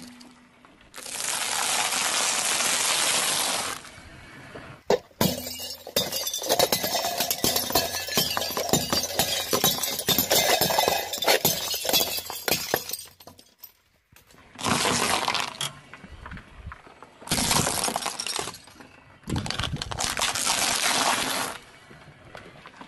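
Car tyre crushing objects one after another: a few seconds of steady noise, then a long run of dense sharp cracks and clinks as white plates shatter, then three short bursts of crunching near the end as brittle things such as waffle cones are flattened.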